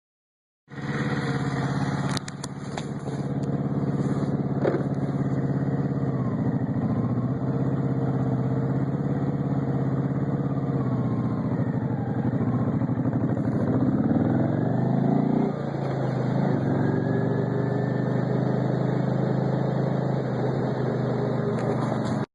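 Kawasaki Vulcan VN750's V-twin engine running, with a few sharp clicks about two seconds in and its pitch rising and falling between about twelve and fifteen seconds in. It carries an unidentified odd noise that the owner is trying to show, plainest around ten to thirteen seconds in.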